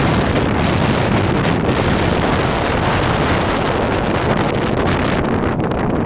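Strong gusting wind buffeting the microphone: a loud, continuous rumbling hiss that eases a little in its highest part about five seconds in.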